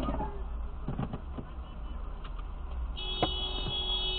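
Car road and engine noise as a low, steady rumble, with a few short knocks in the first second and a half. About three seconds in, a steady high-pitched tone sets in and holds, with one sharper knock just after it starts.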